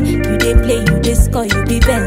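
Afrobeats song playing, with a steady drum beat, sustained bass and a melodic line.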